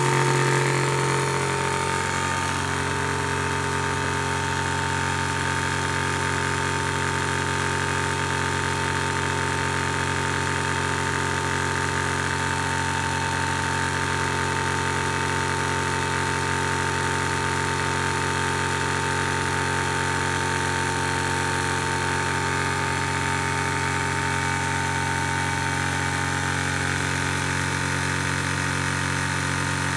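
Zhongyan electric PCP high-pressure air compressor running steadily mid-fill, with a constant hum and a steady higher tone over it, as it pumps the tank past about 20 MPa on its way to 4500 psi.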